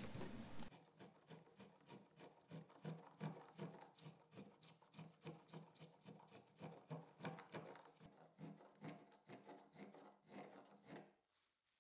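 A spokeshave shaving the curved edge of two taped-together wooden sides, in quick back-and-forth strokes of about two to three a second. The strokes are faint and stop about a second before the end.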